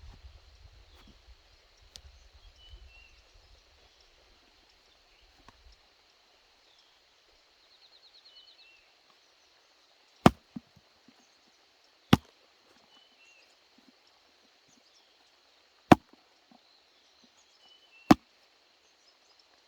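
Four sharp chopping strikes, spaced about two to four seconds apart, over a quiet rural background of faint chirps and a steady high tone.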